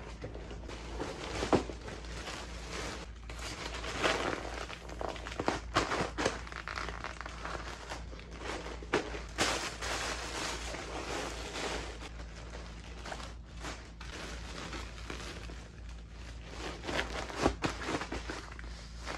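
Plastic wrapping and poly mailer bags rustling and crinkling as they are handled and packed into a fabric duffel bag, in irregular bursts with a few sharper crackles.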